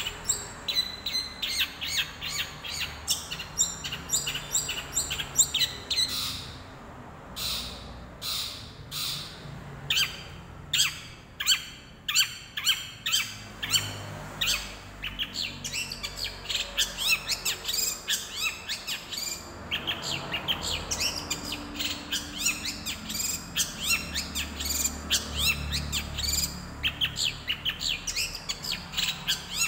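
Long-tailed shrike singing hard in a fast run of sharp chirps and chattering, mimicking the calls of house sparrows fighting. Partway through, the notes slow to single loud chirps for several seconds, then the rapid chattering picks up again.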